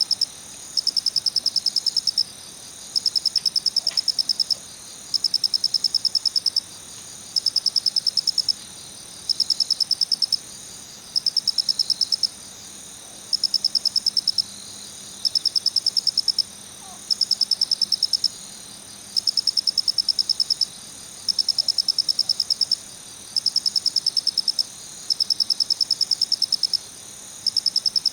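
Male kurotsuya-koorogi (black glossy cricket) calling: a high, rapid pulsed 'kichi-kichi' chirp in trills about a second and a half long, repeated about every two seconds with short pauses between.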